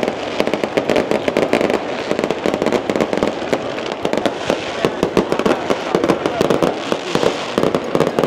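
Strings of firecrackers going off in a dense, continuous crackle of rapid, irregular bangs.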